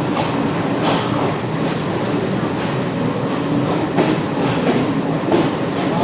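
Passenger train coaches running on the rails, heard from aboard: a steady rumble of wheels on track with a few sharp clacks as the wheels cross rail joints.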